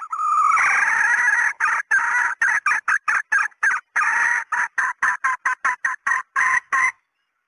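Female red junglefowl cackling: one drawn-out note, then a fast run of short cackles, about five a second with one longer note midway, stopping abruptly near the end.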